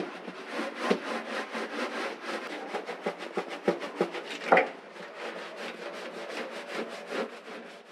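Paint roller rolling a thin coat of primer onto the fibreglass wall of a water tank: a steady sticky rubbing with a fast, even crackle of several ticks a second, and one sharper knock about halfway through.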